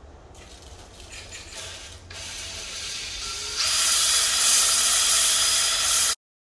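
Cylinder hone spinning and scraping in a cylinder bore of a Ford 2.3-litre four-cylinder engine block, a hissing grind with a steady whine. It grows louder in two steps and stops abruptly near the end.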